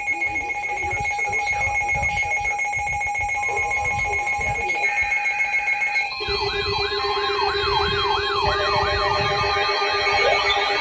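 Emergency alert signal: several electronic alarm tones sound together steadily. About six seconds in, a further layer of fast wailing siren tones joins, rising and falling about twice a second, over a low rumble.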